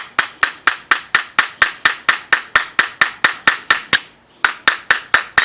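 Small hammer tapping a brass tube sleeve down onto the plastic shaft of an LG stove knob: rapid light, sharp taps at about four a second, a brief pause about four seconds in, then a few more taps.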